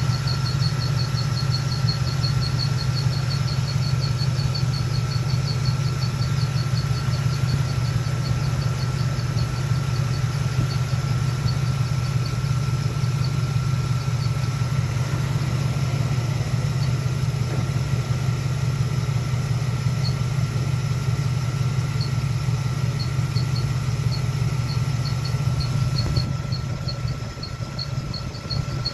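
LT1 V8 engine idling steadily with a fast, rhythmic high-pitched squeak from the front of the engine. The squeak fades out in the middle and returns near the end. It is the sign of a faulty fan clutch.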